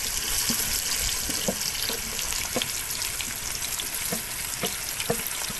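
Sliced onions sizzling in hot coconut oil: a steady hiss with scattered crackles and pops.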